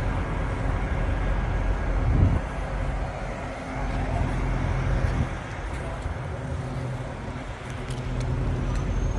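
Diesel engines of parked semi trucks idling, a steady low rumble with a hum.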